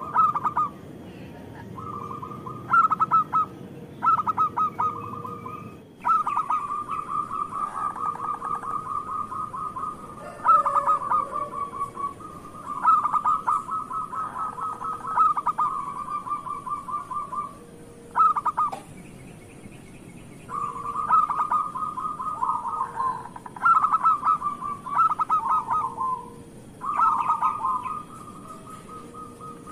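Zebra dove (local perkutut) cooing: repeated phrases of rapid staccato coo notes, each phrase lasting a few seconds and separated by short pauses.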